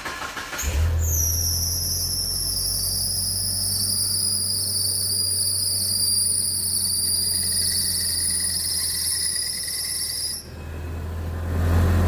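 A Mitsubishi Pajero engine is started just after a new timing belt and hydraulic timing-belt tensioner were fitted. It cranks briefly, catches about a second in and settles into a steady idle without the knock that the failed tensioner had caused. A high-pitched steady whine runs over the idle and cuts off suddenly near the end.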